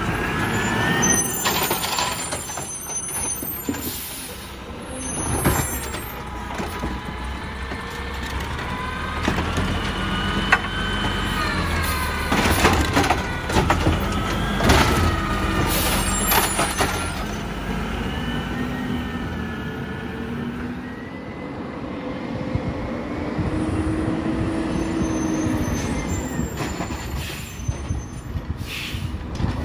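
Peterbilt 320 garbage truck with a DaDee Scorpion automated side-loader working and moving up the street: the engine runs steadily while whining pitches glide up and down, with air-brake hisses and a cluster of sharp metal knocks about halfway through.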